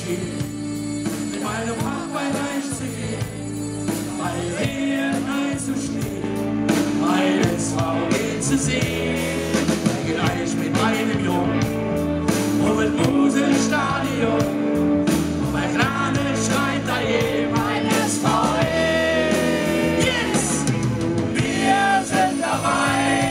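Live rock band playing with several men singing together into microphones, the music swelling louder after a few seconds.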